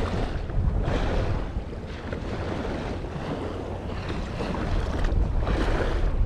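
Wind buffeting the microphone with a steady low rumble, while sea waves wash against the rocks of a breakwater in several swelling surges.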